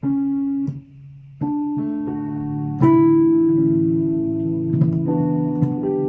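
Keyboard chords played through Ableton software-instrument patches with piano and electric-piano tones, transposed by a global Pitch MIDI effect. A handful of held chords, a new one every second or so, the one near the middle the loudest.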